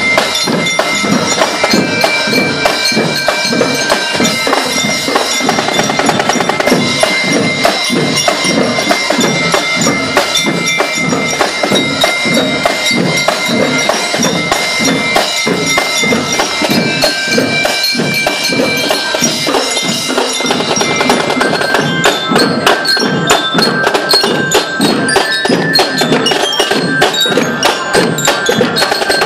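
Marching drum corps playing snare drums, tom-toms and cymbals in a fast, steady, loud rhythm, with held high notes sounding over the drums. The drumming turns crisper and denser about three-quarters of the way through.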